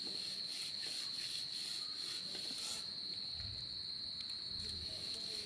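Crickets trilling steadily on one high note, joined for the first few seconds by a second insect rasping in short pulses, about two to three a second. Two soft low thumps come near the end.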